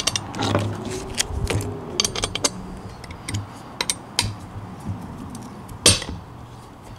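Bolts being tightened with a T-handle hex key into a two-piece split-rim wheel, with small metallic clicks and taps. About six seconds in there is a single sharp snap as the rim halves jump: tension releasing after uneven tightening had jammed them.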